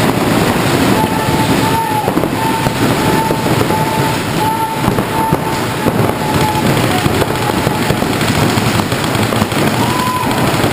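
Many paintball markers firing rapidly at once, their shots overlapping into a dense, steady crackle. A short high beep repeats for several seconds early on and sounds again near the end.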